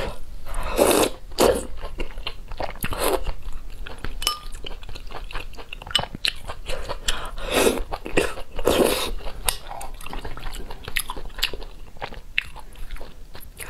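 Mouth sounds of eating spicy hotpot: noodles slurped in, with a few longer slurps, and many short wet clicks of chewing and biting throughout.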